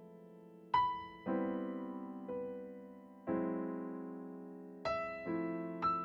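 Slow, spare chords played on a digital keyboard in an electric-piano voice, about six in all. Each chord is struck and left to ring and fade before the next.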